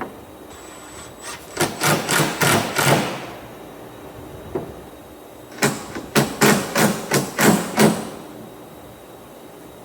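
Hammer striking wood in two quick runs of blows, about four a second, with a pause between them.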